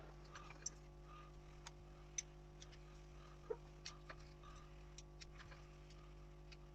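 Near silence over a steady low hum, with faint, irregular light clicks and taps of chainsaw parts and tools being handled during reassembly.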